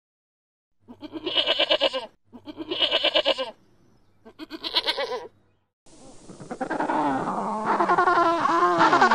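Sheep bleating three times, each call about a second long with a wavering, quavering tone. About six seconds in, a denser run of overlapping animal calls begins over a steady hiss.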